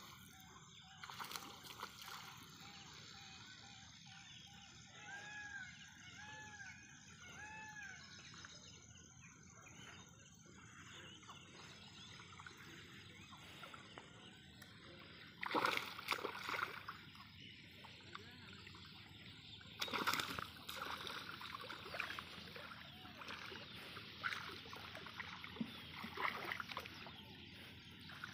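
Water splashing and sloshing in shallow, weedy water as a hooked fish thrashes at the surface, with two louder splashes about halfway through and smaller ones near the end.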